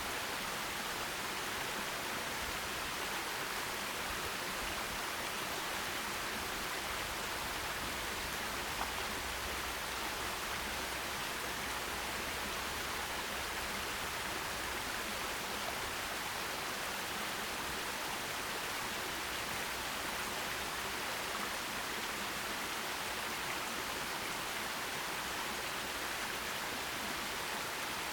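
Forest stream running: a steady, even rush of flowing water with no distinct splashes.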